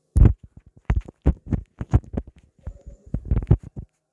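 A rapid, irregular run of loud low thumps and clicks, about a dozen in three and a half seconds, with sound cutting out completely between them.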